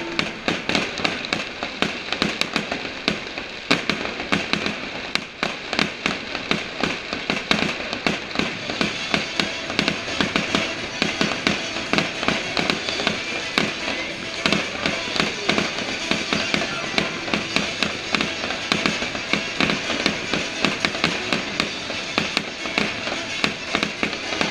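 A fast, dense barrage of fireworks: bangs and crackles, several a second without a break, with music playing underneath.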